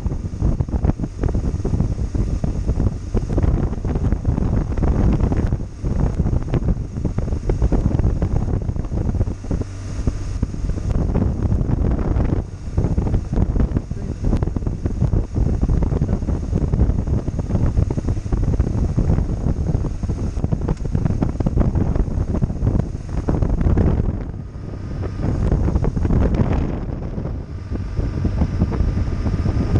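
Wind buffeting the microphone of a camera on a moving BMW R1200GS motorcycle, with the bike's boxer-twin engine running beneath it. The buffeting eases for a couple of seconds late on.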